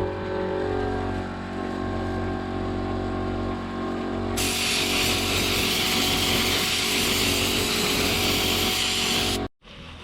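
Paint spray gun hissing as it sprays, one long steady burst starting about four seconds in and cutting off suddenly near the end, over a steady low hum.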